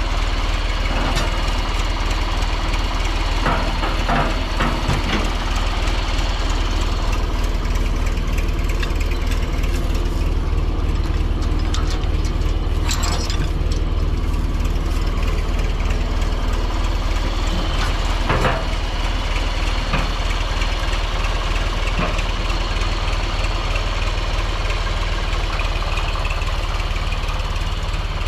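Vintage John Deere tractor engine running steadily at low speed, with a few sharp clanks now and then.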